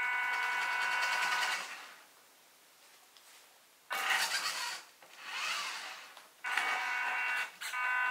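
Small electric motor and gearbox of a WPL D12 1/10 RC pickup whining at its slowest speed setting, in short throttle runs: a steady whine that stops after about a second and a half, a brief burst about four seconds in, a whine that rises and falls, then steady whine again near the end.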